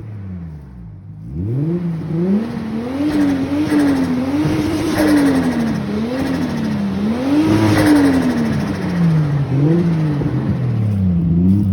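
Nissan Skyline R33's RB25DET turbocharged straight-six, straight-piped, being revved over and over. The engine pitch climbs and falls in a run of rev blips that grow louder about a second in, with the highest revs around the middle.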